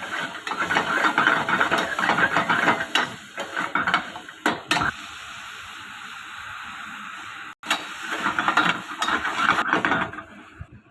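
A spatula scrapes and stirs a stir-fry in a pan in rapid strokes over a faint sizzle. The stirring pauses for a few seconds, leaving a steady hiss, then resumes after an abrupt break.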